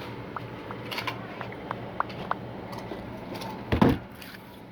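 Short electronic beeps from a store checkout register, over a steady low hum. Near the end there is one loud thump of handling on the microphone.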